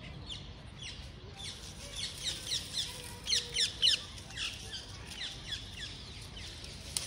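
Small birds chirping: a rapid run of short, falling chirps, busiest and loudest around the middle.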